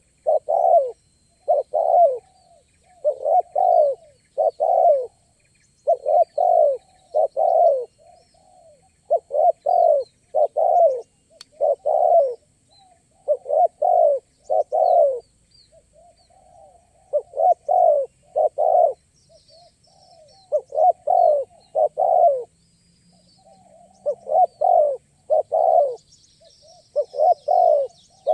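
Spotted dove (tekukur) cooing: phrases of two or three rough coos repeated every second or two, with short gaps between phrases. Faint chirps of small birds sound higher up, more of them near the end.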